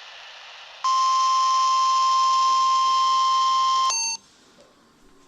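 NOAA Weather Radio warning alarm tone: after a moment of steady hiss, a single steady high beep near 1 kHz sounds for about three seconds and cuts off suddenly, broadcast as a test of the alarm.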